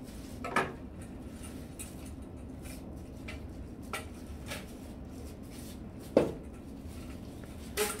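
Plastic film being peeled and pulled off metal vacuum wand tubes, with scattered light clicks and knocks of the metal tube, the loudest knock about six seconds in.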